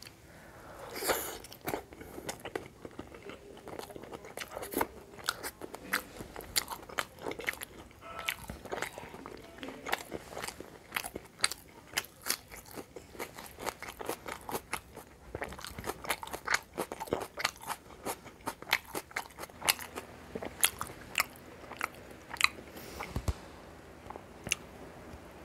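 Close-up mouth sounds of someone eating crunchy food: crisp crunches from biting into a jalebi and a raw onion ring, with chewing in between. The loudest bite comes about a second in, and the crunching thins out near the end.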